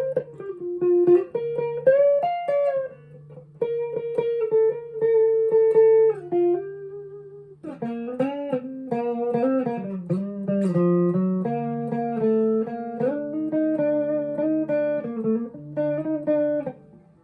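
Electric guitar, a Jackson on its neck pickup, played through a Fender Mustang LT25 amp with no effects: a run of single notes and double stops with string bends, pausing briefly about seven and a half seconds in. The neck pickup tone is dark and moody but not muffled.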